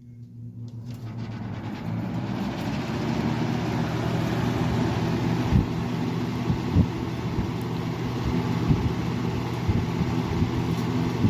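Vintage Edison infinite-speed box fan, with its Edison Toastmaster motor, starting on high: it spins up over about two seconds, then runs steadily with a motor hum and a rush of air from the blades. A few short low knocks sound partway through.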